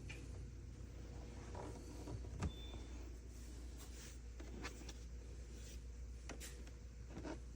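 Robot vacuum-mop running quietly while mopping: a steady low hum with scattered light clicks and taps, one sharper tick about two and a half seconds in.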